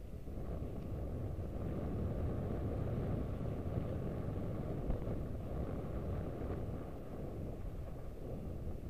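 Wind buffeting the microphone of a mountain bike being ridden, a steady rough rush mixed with the bike's rolling noise on the trail.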